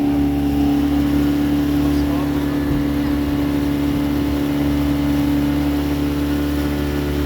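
An engine running steadily at a constant speed, an even, unchanging drone.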